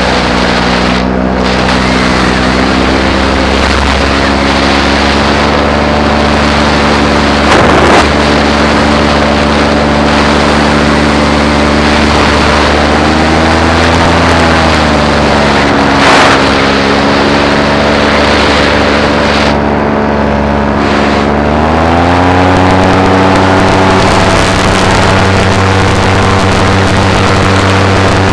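Paramotor engine and propeller running steadily in flight. The pitch swells briefly about 14 seconds in, then climbs to a higher, steady throttle setting about 22 seconds in, with two brief thumps along the way.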